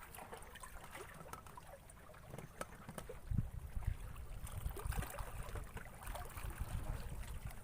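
Wind rumbling on the microphone, stronger from about three seconds in, over light water sounds and scattered small clicks.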